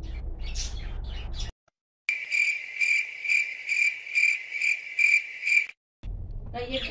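Cricket chirping sound effect: an even, high chirp repeating about three times a second for roughly three and a half seconds, set between stretches of dead silence and cutting off abruptly. It is the stock 'crickets' cue for an awkward silence.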